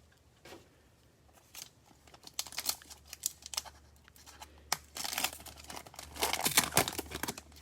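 Foil trading-card pack wrapper being torn open and crinkled: scattered small crackles, then two louder stretches of tearing and crinkling about five and six seconds in.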